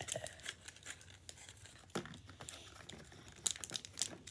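Crinkling and rustling of small plastic wrappers on miniature toy snack packets being handled and worked open, with a few sharp clicks, the loudest about two seconds in.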